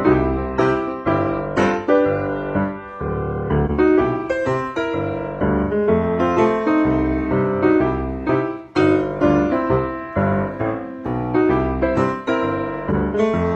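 Piano music: a continuous run of struck piano notes over a lower bass line, each note fading after it is struck.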